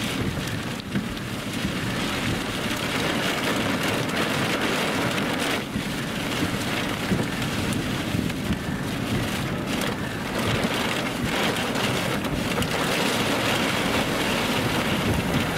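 Steady rushing noise of rain and wind from a thunderstorm, with no clear breaks.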